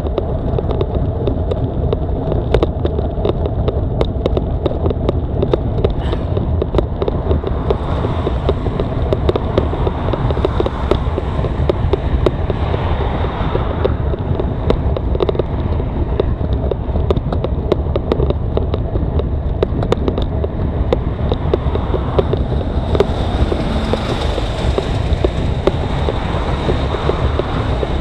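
Constant wind rumble on the microphone of a bicycle climbing a rocky road, with many small rattles and knocks from the rough ground.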